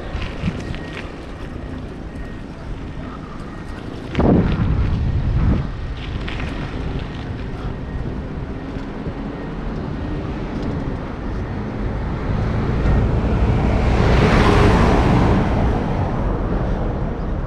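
Street ambience with wind rumbling on the microphone. There is a short, louder burst about four seconds in. A passing vehicle swells to a peak about fourteen seconds in, then fades.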